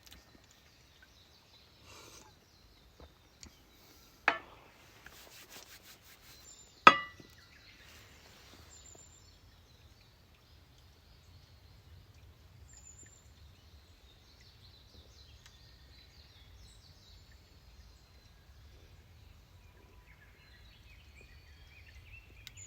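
Two sharp knocks, about four and seven seconds in, the second louder, over faint steady outdoor background noise.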